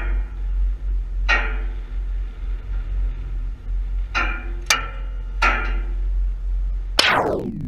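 A few sharp metallic clinks over a steady low rumble, then about seven seconds in a sudden loud blast whose pitch falls quickly: the nitro-fuelled rocket engine lighting on its test stand.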